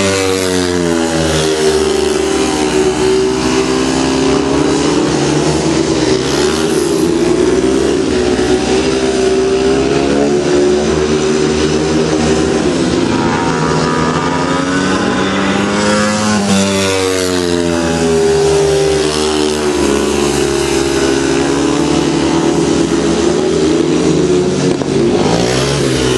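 Speedway motorcycles' 500cc single-cylinder methanol engines racing, loud and continuous. The engine pitch sags and climbs again several times as the riders go into and out of the turns.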